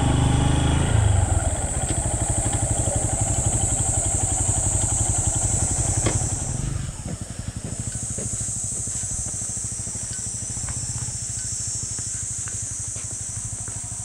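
Honda CB223S single-cylinder motorcycle engine dropping from riding revs to a steady, quickly pulsing idle, over a constant high hiss. A sharp click comes about six seconds in, after which the idle is quieter.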